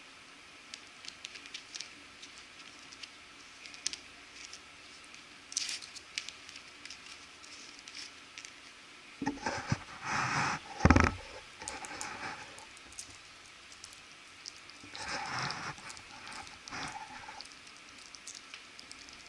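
Yorkshire terrier puppy scuffling about on a leather sofa cushion with its chew bone. Light scattered clicks and scratches come first. Louder bouts of rustling and scuffling follow about nine seconds in and again around fifteen seconds, with one sharp thump around eleven seconds.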